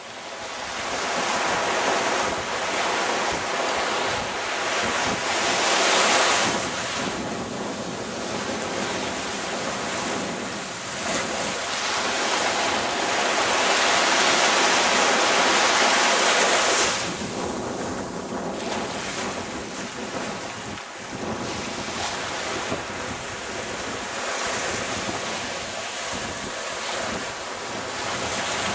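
Wind buffeting the microphone over small surf washing onto a sandy beach, a steady rushing noise that swells louder twice, around a fifth of the way in and again through the middle.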